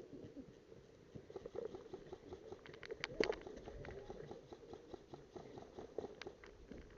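Faint, irregular clicking and crackling, with one sharper snap about three seconds in.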